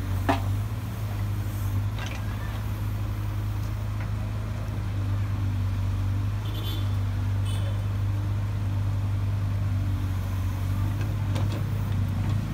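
Case backhoe loader's diesel engine running steadily at one constant pitch while it works, with a single sharp knock just after the start.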